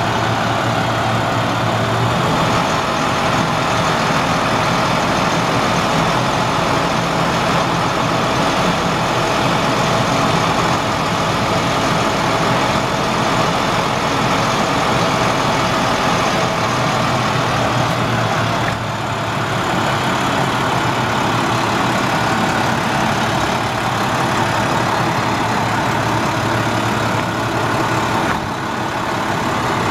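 International DT466 inline-six diesel engine of a 2006 International 4300 dump truck idling steadily.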